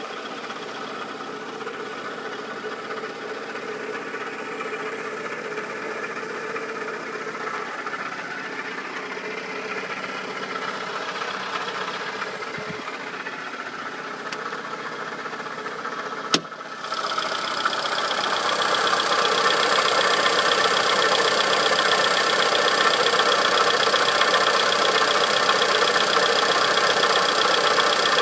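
Peugeot 407 Coupé 2.2 engine running steadily with a strange noise that the owner cannot place. About halfway through there is a single sharp click, after which the engine sound is louder and brighter.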